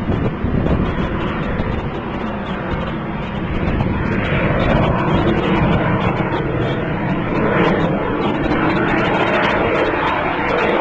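XCOR Rocket Racer's liquid-oxygen/kerosene rocket engine firing in flight: a loud, steady rushing noise with a fine crackle, swelling a little about four seconds in.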